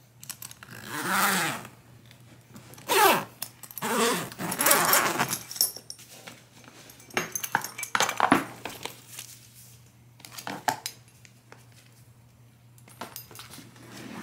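Soft-sided rolling suitcase being zipped and handled: a few quick zipper runs and rustles in the first six seconds or so, then lighter clicks and jangles from its metal clips and tags.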